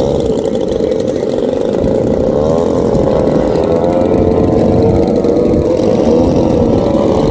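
Radio-controlled model airplane engine running, its buzzing pitch rising and falling several times as it changes throttle or passes overhead, over steady wind rumble on the microphone.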